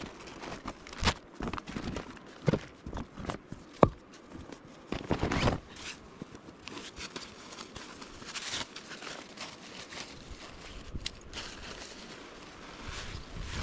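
Camp gear being handled while a tent is pitched: fabric rustling and crinkling with scattered clicks and knocks. One sharp click a little under four seconds in is the loudest sound.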